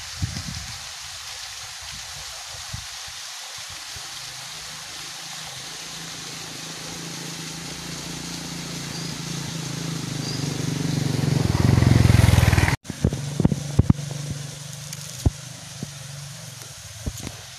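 A motor vehicle's engine drawing nearer over a steady hiss, growing louder for several seconds until it is close by. The sound then cuts off abruptly, and the engine carries on more quietly with a few sharp clicks.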